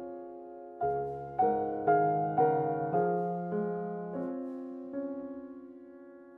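Gentle piano music: after a brief lull, notes and chords are struck about every half second, each left to ring and fade, with the strikes spacing out toward the end.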